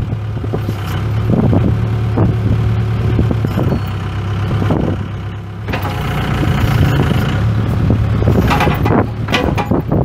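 Case 580K backhoe's four-cylinder diesel engine running steadily, with scattered clanks, getting louder about halfway through.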